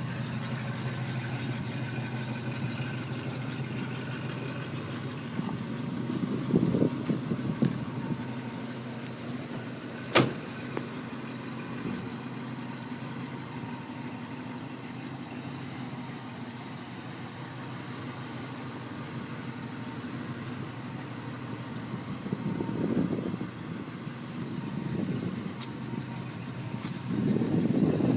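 1956 Chevrolet Bel Air's engine idling steadily, swelling briefly a few times, with a single sharp click about ten seconds in.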